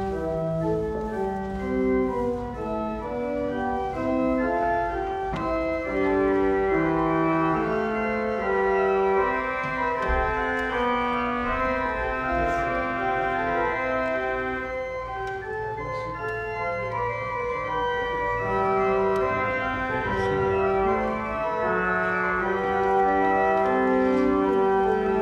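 Church organ playing a postlude: chords of several held notes at once, moving from chord to chord at a steady walking pace.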